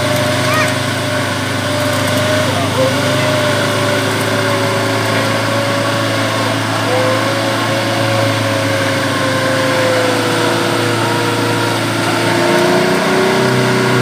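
Off-road 4x4's engine running steadily under load as the vehicle crawls through deep mud, its note shifting and growing a little louder near the end.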